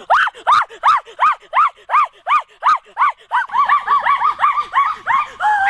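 A rapid series of short, high-pitched yelping cries, each rising and falling in pitch, about three a second, turning quicker and more crowded about halfway through.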